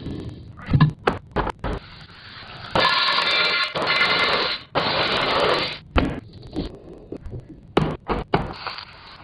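Kitchen restocking handling sounds: a run of knocks and clicks as items and containers are set down and handled, with two stretches of steady rustling noise in the middle.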